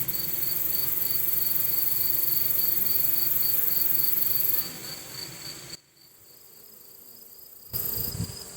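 Honeybees buzzing at a hive entrance, with many bees fanning their wings to push air into the hive for cooling and to dry nectar. The steady hum drops much quieter for about two seconds past the middle, then returns.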